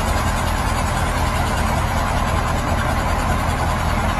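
Diesel engine of a KAMAZ crane truck running steadily while it powers the truck-mounted crane.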